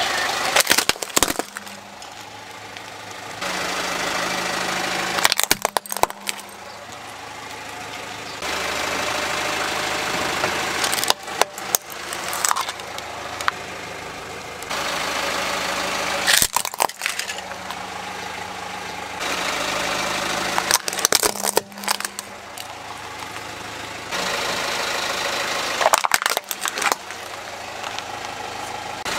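A car engine idling while plastic toys crack under its tyre, in a run of short cuts. About six bursts of sharp cracking come a few seconds apart, each between stretches of steady engine sound.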